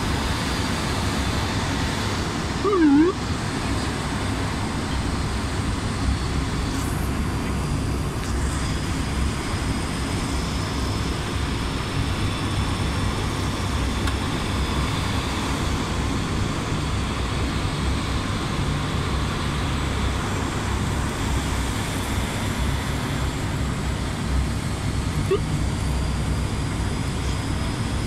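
Steady cockpit drone of an ATR 72-600's twin PW127-series turboprop engines and propellers with airflow, heard on final approach. A brief warbling blip sounds about three seconds in.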